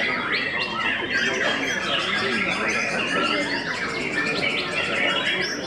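Many caged songbirds singing at once, a dense, steady mix of overlapping chirps and whistles.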